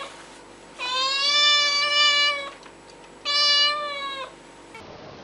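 Cat meowing twice: a long, drawn-out meow of nearly two seconds, then a shorter one, each holding a fairly steady pitch.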